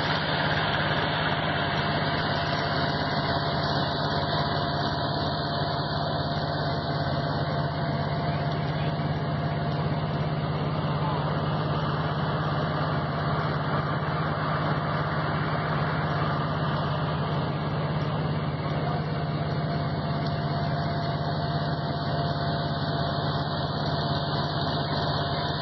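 Steady drone of a running engine, unchanging in level and pitch, with a constant low hum and a fainter higher tone.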